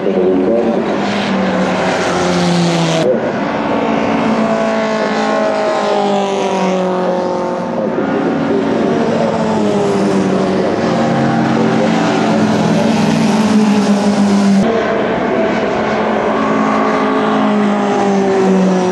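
Small historic racing saloon cars running hard at racing speed, several engines at once, their pitch sliding down and climbing again as they brake, change gear and accelerate out of corners.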